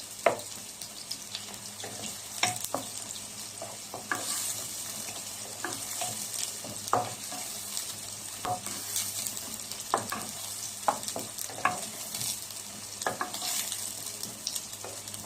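Garlic and onion sizzling in hot oil in a pan, with a steady hiss, while a utensil is stirred through them, scraping and clicking irregularly against the pan.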